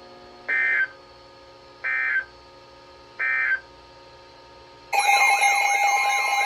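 Three short bursts of Emergency Alert System (SAME) digital data, about a second and a half apart: the end-of-message code that closes a warning. About five seconds in, a loud electronic alert tone starts for the next warning: a steady tone with a warbling sweep that repeats about twice a second.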